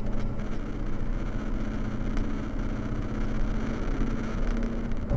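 Rock truck's diesel engine running steadily under a heavy load, heard from inside the cab, with a low, even hum; a slightly higher hum joins in about four seconds in.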